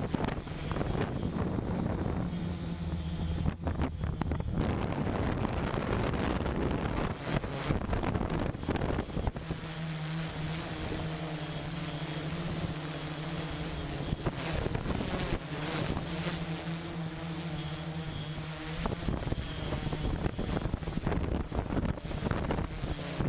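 Steady hum of a construction machine's engine running, fading in and out, with wind buffeting the microphone, a few brief knocks, and a constant high-pitched whine.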